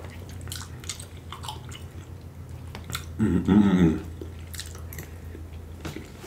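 Close-miked chewing and wet mouth clicks of a man eating jerk chicken and shrimp. Three seconds in comes a short, wordless hum of the voice, the loudest moment.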